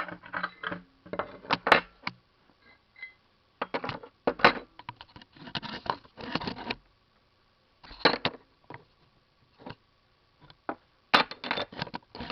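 Metal parts and screws clinking and rattling in short, irregular bursts with quiet gaps, as the recoil starter housing is handled and fitted back onto a Honda G100 small engine.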